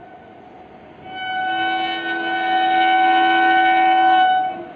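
Indian Railways WAP-7 electric locomotive's horn sounding one long blast, a chord of several steady tones, starting about a second in and cutting off near the end.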